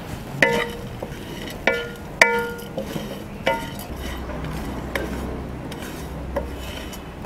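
Wooden spatula stirring a dry mix of roasted split chickpeas, grated coconut and spices in a metal kadai. It knocks against the pan four times in the first few seconds, each knock ringing briefly, then scrapes and rustles more quietly.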